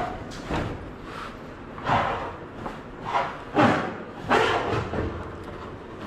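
Lloyd window air conditioner's sheet-metal chassis scraping and bumping against its cabinet as it is pulled out, about five separate scrapes and thuds.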